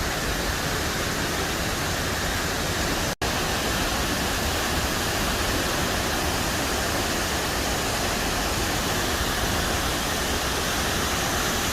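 Waterfall: a steady, even rush of falling water, broken for an instant about three seconds in.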